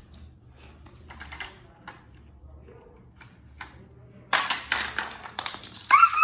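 Hard plastic clicking from a Hot Wheels toy track and toy car: scattered taps at first, then a quick run of rapid rattling clicks about four seconds in.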